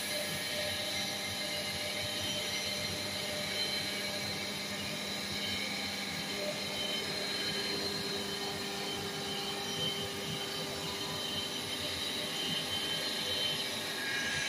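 Cylinder-head resurfacing machine running steadily as it makes a pass across an aluminium cylinder head, skimming the face flat. Even machine noise with a steady whine over it.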